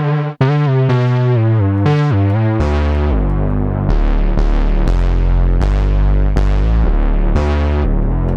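Synth bass preset from the EastWest Forbidden Planet virtual instrument played on a keyboard through amp simulation: a string of deep notes, a new note about every half second, with a brief cut-out about half a second in.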